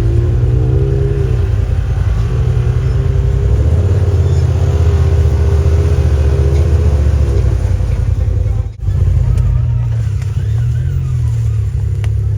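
Side-by-side UTV engine running hard under load, its pitch wavering slightly. The sound breaks off briefly about nine seconds in, then resumes.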